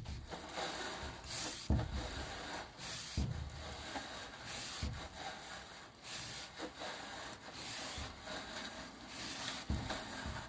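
Sewer inspection camera's push cable and head being pulled back through a rough cast iron drain pipe, a continuous scraping rub with irregular louder strokes.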